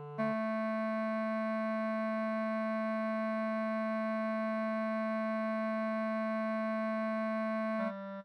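Synthesizer music: one long electronic note held steady for about seven and a half seconds, changing to lower notes near the end.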